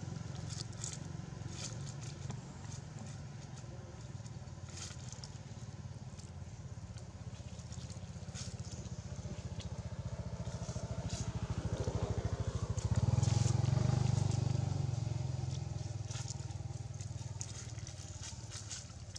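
Low engine hum of a passing motor vehicle, building to its loudest about two-thirds of the way through and then fading, with short dry crackles over it.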